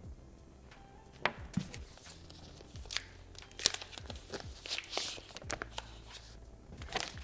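Product packaging being handled while unboxing: a series of sharp clicks and knocks, with a papery rustle about five seconds in.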